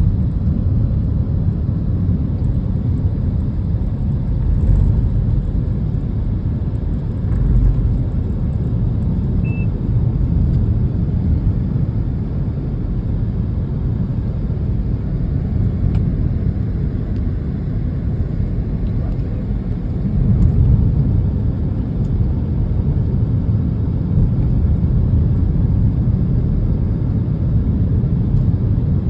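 Steady low rumble of a motor vehicle on the road, engine and road noise without a break.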